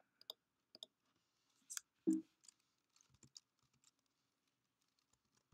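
Sparse keystrokes on a computer keyboard: a few sharp, separate clicks, with a louder, duller thump about two seconds in.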